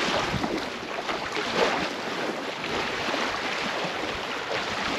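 Steady wind noise on the microphone over small waves washing on the shore.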